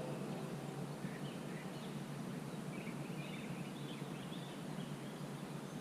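Steady outdoor background hiss with a few faint, scattered bird chirps.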